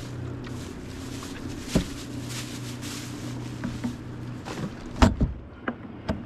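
A boat's motor humming steadily, cutting off a little past four seconds in. Scattered knocks on the boat come over it, the loudest a sharp double knock about five seconds in.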